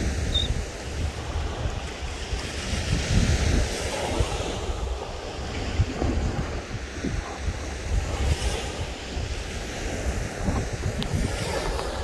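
Small waves washing onto the beach in a steady surf, with wind gusting over the microphone.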